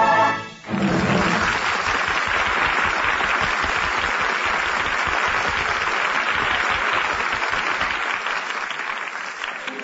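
The last sung note and orchestra stop just after the start, and an audience breaks into applause about a second in. The applause holds steady and fades away near the end.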